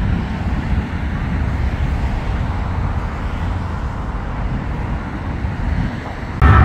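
Jet airliner passing low overhead, its deep rumble slowly fading as it moves away. Near the end the sound cuts abruptly to louder music.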